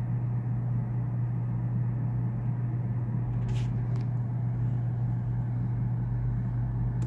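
Steady low electrical hum, with two short clicks about three and a half and four seconds in, as a USB plug is moved about in a loose laptop port.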